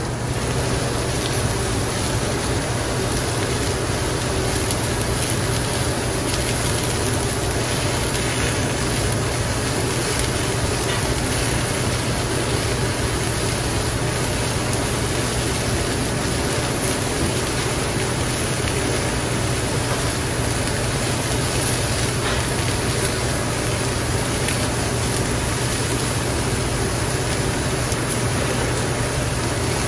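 Steady rushing noise with a constant low hum from running commercial kitchen equipment.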